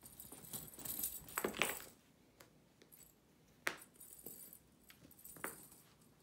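Young Bengal cat playing with a string cat toy: light metallic jingling and rattling through the first two seconds and again near the end, with a couple of sharp clicks in between.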